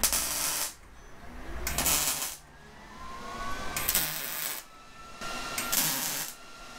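Wire-feed welder laying tack welds on bent tubing: four short bursts of arc noise, each under a second, about two seconds apart.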